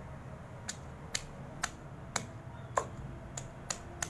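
A run of sharp, hard kitchen taps, about two a second, starting under a second in, as onion is worked into the masala paste ingredients.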